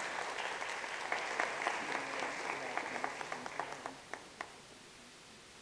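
Audience applauding, the clapping thinning to a few last claps and dying away about four and a half seconds in.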